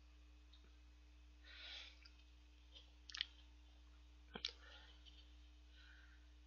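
Near silence with a faint steady hum, broken by a few soft clicks about three seconds in and again about four and a half seconds in, as a small soju shot glass is handled.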